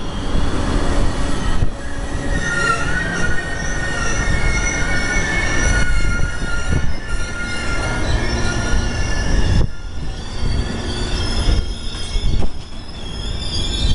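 Amtrak Silver Star's stainless-steel passenger cars rolling past close by, the wheels rumbling on the rails. High, wavering squeals ride over the rumble.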